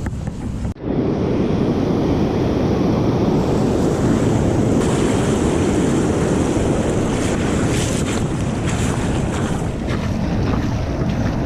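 Ocean surf breaking and washing up the beach, with wind buffeting the microphone; a steady loud rush that briefly drops out about a second in.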